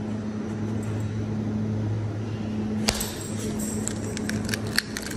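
Steady low electrical hum, with a run of light clicks and taps from about three seconds in as an egg is handled against a glass bowl.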